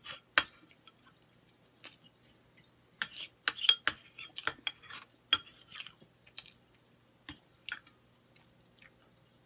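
Metal fork clinking and scraping against a plate: a series of short, sharp clinks, busiest around three to four seconds in and sparser after.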